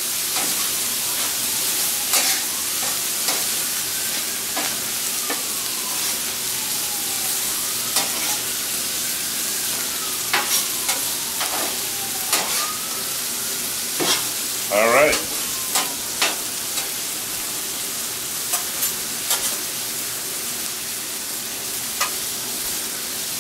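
Shrimp, fried rice and steaks sizzling steadily on a flat steel griddle top, with metal spatulas clicking and scraping against the steel every few seconds as the food is turned.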